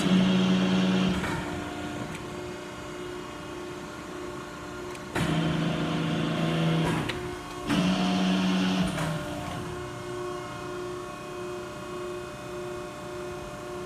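Cincinnati 90CBX6 hydraulic press brake cycling its ram: the hydraulic pump hums steadily, and three times the sound grows louder with a strong low tone and hiss as the ram strokes.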